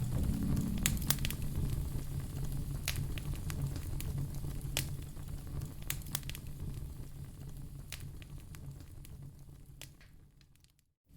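Wood fire in a fireplace crackling, with irregular sharp pops and snaps over a low rumble of flames. It fades gradually and cuts to silence near the end.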